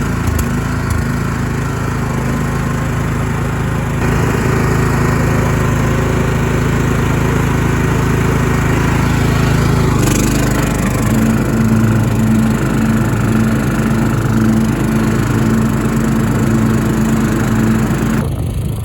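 Toro LX425 lawn tractor's Kohler Courage engine running steadily. Its note changes about ten seconds in, and the sound cuts off just before the end.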